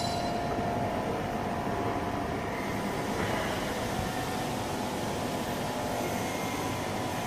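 Steady hum and hiss of running machinery, with a faint steady whine.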